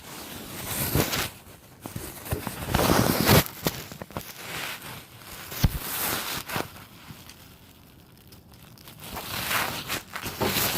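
Irregular rustling and crinkling with a few sharp knocks, as of things being handled and moved about.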